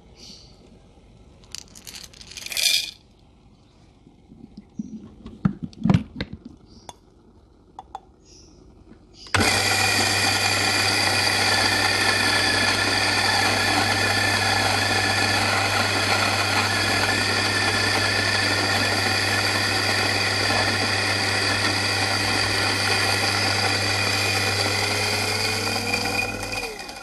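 Electric coffee grinder grinding a dose of coffee beans: the motor starts abruptly about nine seconds in, runs steadily with a low hum, and cuts off just before the end. Before it, a few clicks and knocks of the beans and grinder being handled.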